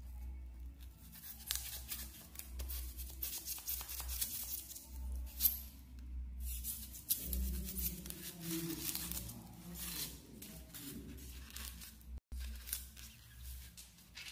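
Utility knife blade cutting and scraping through a styrofoam (expanded polystyrene) sheet: a quick, irregular run of short scraping cuts as excess foam is shaved off at an angle, over a low steady hum.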